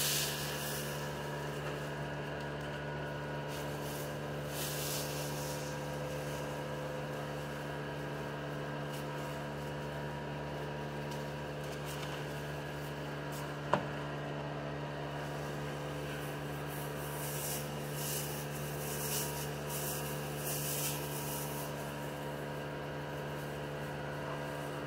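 Electric shop fan running with a steady hum, a few brief rubbing sounds over it and one sharp click about fourteen seconds in.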